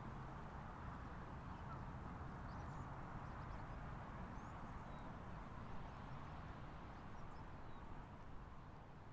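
Faint, steady outdoor ambience, a soft even rush with a low hum under it, and a few faint, short, high bird chirps, growing slightly fainter near the end.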